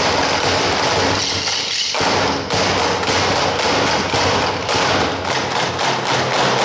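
An ensemble drumming with drumsticks on plastic stacking chairs: dense tapping and thudding strikes, settling about two and a half seconds in into an even beat of about three to four strikes a second.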